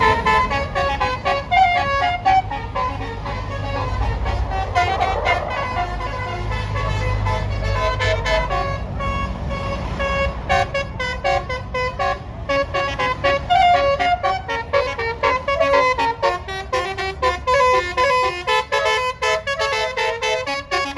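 A bus's basuri musical air horn playing a fast melody of short, stepped notes, with the bus engine rumbling low under it for the first eight seconds or so.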